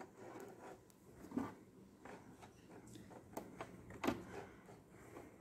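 A few faint clicks and light knocks from a Singer Fashion Mate 3342 sewing machine's needle and bobbin-hook mechanism as the handwheel is turned slowly by hand, so that the needle drops and picks up the bobbin thread.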